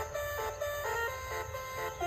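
A simple electronic melody of short notes stepping quickly up and down.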